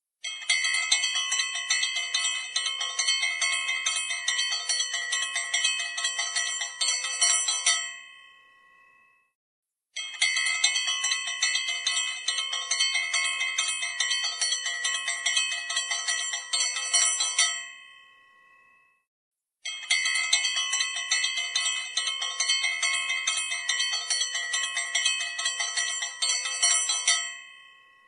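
Small puja hand bell rung rapidly, its clapper striking many times a second with a bright ringing tone. It rings in three runs of about seven seconds each, and each run ends in a ringing fade before a short silence.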